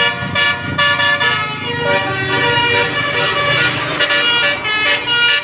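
Telolet horn, a multi-note musical air horn, playing a tune of stepped notes that starts abruptly and repeats in quick phrases, with short breaks in the first second.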